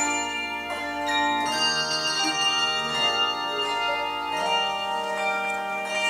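Handbell choir ringing a hymn arrangement: chords of handbells struck about every three-quarters of a second, each ringing on and overlapping the next.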